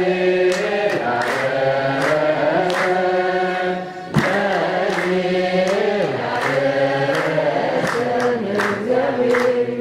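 A group of men chanting an Ethiopian Orthodox wereb hymn in unison, held notes sliding between pitches, with sharp beats keeping time. About four seconds in the chant briefly drops away and comes back in abruptly.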